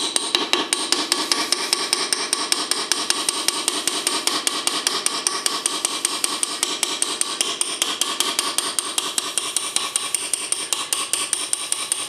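Small engraving hammer tapping the end of a hand-forged graver in quick, even strokes, about six or seven a second, as the graver cuts a line into a metal plate held in a vise. Each tap gives a light metallic ring.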